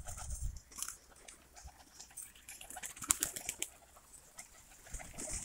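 A flock of domestic pigeons cooing, with scattered short clicks and brief flutters of wings.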